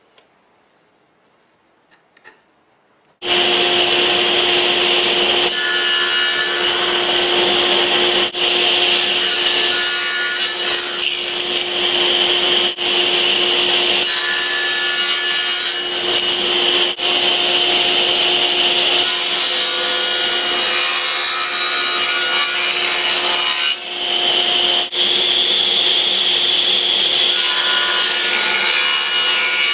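A power tool cutting wood. It starts abruptly about three seconds in and then runs steadily with a constant motor tone, dipping briefly a few times.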